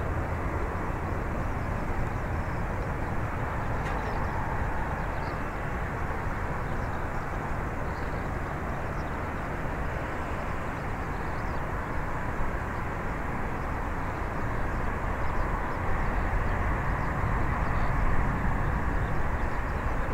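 Rolls-Royce Trent 1000 turbofans of a Boeing 787-8 running, a steady jet rush that swells over the last few seconds.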